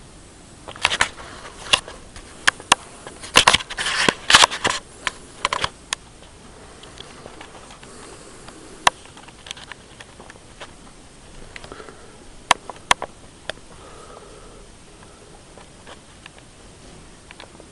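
A quick run of sharp clicks and clatter for the first few seconds, then a few single clicks spread apart: small hard objects being handled.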